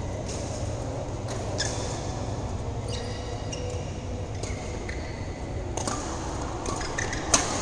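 Badminton rally: rackets striking a shuttlecock in a few sharp hits, the loudest near the end, with short squeaks of shoes on the court surface over a steady low hum.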